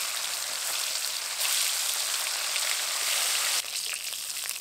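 Pieces of stingray fish frying in hot mustard oil in a kadai: a loud, steady sizzling hiss that starts suddenly, eases off about three and a half seconds in, and then carries on with spitting crackles.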